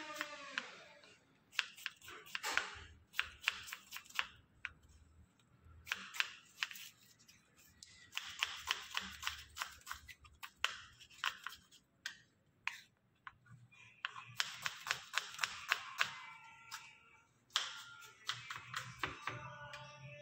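Kitchen knife chopping an onion on a bamboo cutting board: quick runs of blade taps against the wood, several a second, broken by short pauses.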